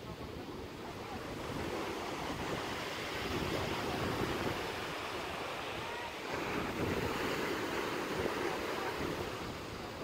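Rough sea surf: waves breaking and washing in with foam, with wind buffeting the microphone. The surf swells louder about six seconds in.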